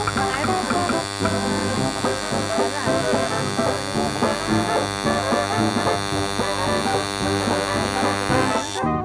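Coil tattoo machine buzzing steadily as it works ink into the skin, cutting off suddenly near the end.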